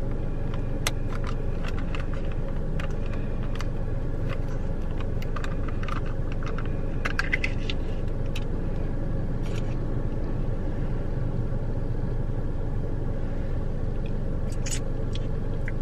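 Scattered plastic clicks and crinkling as a dipping-sauce cup is worked open by hand, over the steady low rumble of a car cabin with the engine running.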